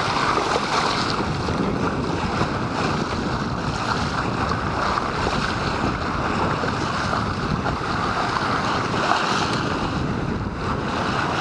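Bow wave of a sailing yacht under way, water rushing and splashing steadily along the hull, with wind buffeting the microphone.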